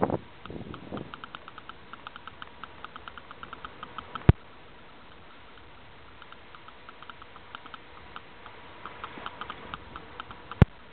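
Quick runs of light, even ticking from a bicycle's freewheel as the bike rolls without pedalling. Two sharp knocks break in, one about four seconds in and one near the end.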